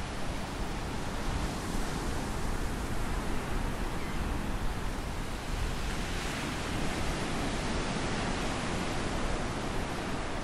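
Ocean surf breaking and washing up a sandy beach, a steady rush that swells a little past the middle, with wind rumbling on the microphone.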